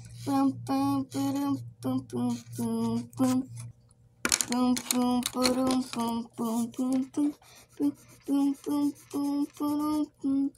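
Background music: a song with a singing voice holding short notes in a steady rhythm, with a brief break a little before four seconds in.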